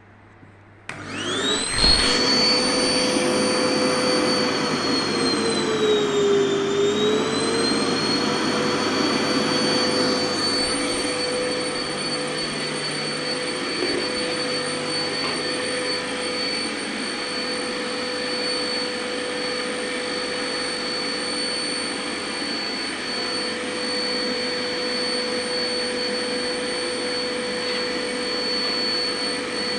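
Home-built workshop vacuum cleaner switched on about a second in, its motor spinning up with a rising whine and then running steadily. Its pitch sags briefly a few seconds later and recovers.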